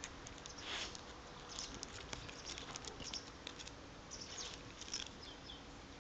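Faint scattered clicks and light patter from a dog moving about and nosing at a slug on stone paving.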